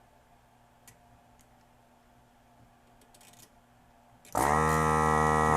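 Electric vacuum pump of a heated desoldering gun (solder sucker) switching on about four seconds in and running with a steady loud buzz, sucking molten solder from a capacitor's leads on a double-sided circuit board. Before it, only a few faint ticks of the tip against the board.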